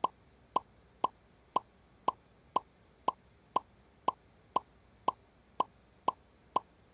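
Quiz-show letter-reveal sound effect: a short electronic blip each time a letter drops onto the clue board, repeating steadily about twice a second.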